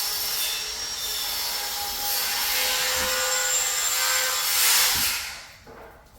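Continuous rasping scrape of work on the wiring at a ceiling electrical box as it is stripped back, loudest just before it stops a little after five seconds in.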